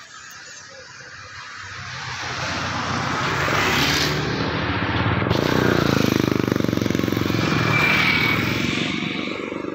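A motor vehicle approaching and passing close by on the road: its engine and tyre noise build over several seconds, peak, then fade.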